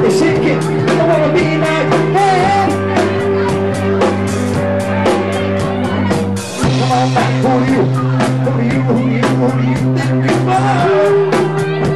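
Live funk band playing: a male singer over electric guitar, electric bass and drums. The drums keep a steady beat, and the low held notes change about every four seconds.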